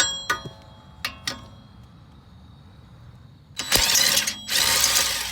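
Metallic clinks with a brief ring near the start and about a second in. Then a handheld power driver runs in two short bursts, starting about three and a half seconds in, spinning out a 14 mm wheel hub assembly bolt.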